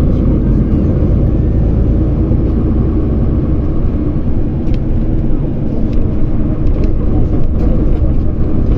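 Steady low rumble of a moving road vehicle: engine, tyre and wind noise while travelling along a street.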